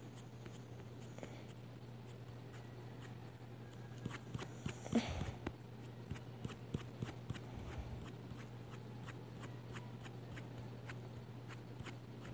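Faint, steady low hum with a run of small, irregular clicks and taps starting about four seconds in, a few of them louder near five seconds.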